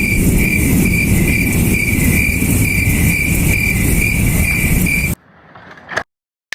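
Insect chirping in a steady pulse of about two chirps a second, over a loud low rumble, likely wind on the microphone; both stop abruptly about five seconds in.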